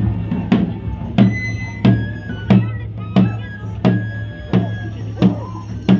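Traditional pipe-and-drum procession music: a drum is struck steadily about once every two-thirds of a second, about nine strokes, under a high flute playing long held notes.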